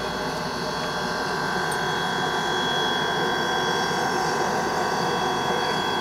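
A standing steam locomotive, hissing steadily with a few constant high whining tones over the hiss.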